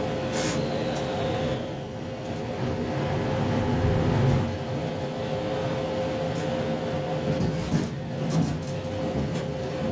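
JR Shikoku 2700 series diesel express train sounding from the cab: a steady hum with a steady tone over a dense rumble. The rumble swells about four seconds in, and a few sharp clicks come near the start and again about eight seconds in.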